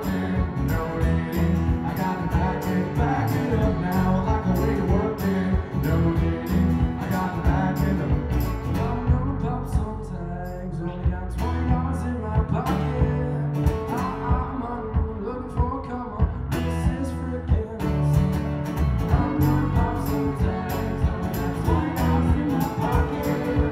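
Live band music from violin, acoustic guitars and electric bass, played over a steady, even beat that thins out briefly twice in the middle.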